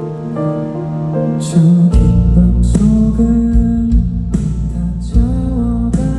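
Live band music: a quiet, sustained melodic opening, then the full band comes in louder about two seconds in with a steady beat.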